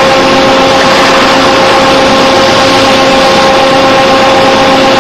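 Hinged-belt chip conveyor of a floor-type horizontal boring mill running: a steady mechanical hum with a constant whine over it.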